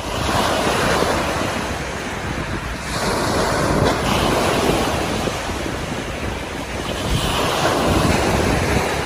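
Waves breaking and washing up a sandy beach, swelling and easing every few seconds, with wind buffeting the microphone.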